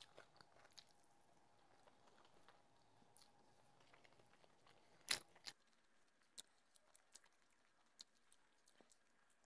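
Faint eating sounds: fingers mixing rice with curry and quiet chewing, with scattered soft wet clicks and a sharper pair of clicks a little after five seconds in.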